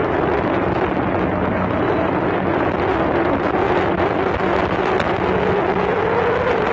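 Motorboat engine running steadily at speed, its pitch wavering slightly, with wind noise on the microphone.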